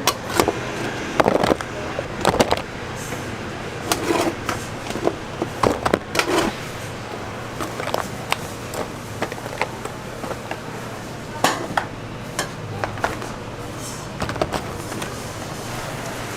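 Food-preparation clatter: irregular sharp clacks and knocks, like utensils against pans or boards, over a steady low hum, with some indistinct voices.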